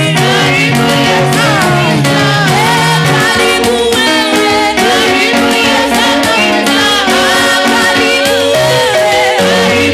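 Music: a Swahili gospel worship song, voices singing over a band with steady held notes and regular percussion.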